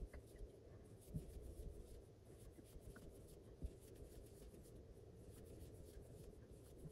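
Very faint scratchy rubbing and small ticks of a crochet hook drawing acrylic-polyester yarn through loop after loop, making chain stitches, over quiet room tone.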